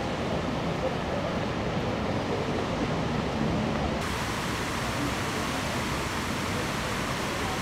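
Steady rushing splash of fountain jets falling into their basin. About halfway through it turns brighter and hissier as the sound comes from close to the fountain.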